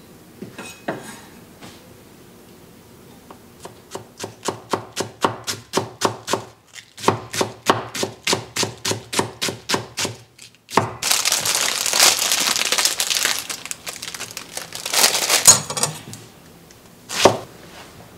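Kitchen knife chopping vegetables on a wooden cutting board in quick regular strokes, about four a second. This is followed by several seconds of dense, loud scraping and rustling, and one sharp knock near the end.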